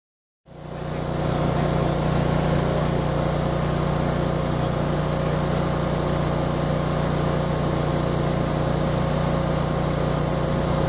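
Heavy construction machinery engine running steadily with a constant low hum. It fades in about half a second in and then holds level.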